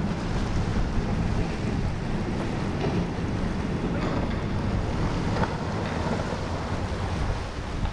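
Wind buffeting the microphone over the wash of waves and surf, with the low steady hum of a powerboat's engines running through the inlet.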